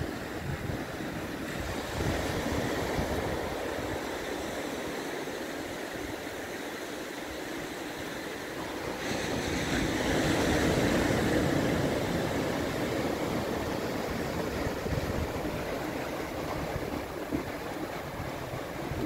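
Sea surf breaking and washing over a rocky shore, a steady rushing noise that swells louder about halfway through, with wind buffeting the microphone.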